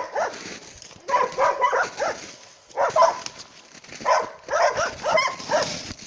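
Dog barking in three quick runs of short barks.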